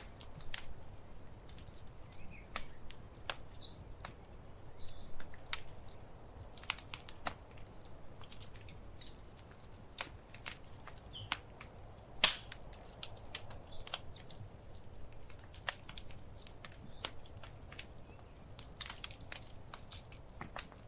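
Wood fire crackling, with irregular sharp pops and snaps over a low steady rumble; one louder pop about twelve seconds in.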